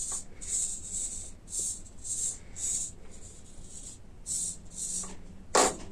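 Small hobby RC servos whirring in short bursts, about eight times, as the transmitter stick drives them back and forth, with a louder knock near the end.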